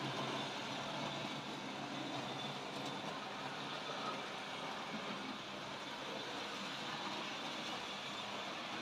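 Tri-ang OO-gauge model train running on the layout: a steady whir of the locomotive's electric motor and its wheels running over the track.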